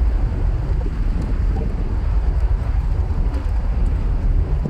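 Wind buffeting the microphone on a ship's open deck: a steady, fluttering low rumble with an even rushing hiss over it.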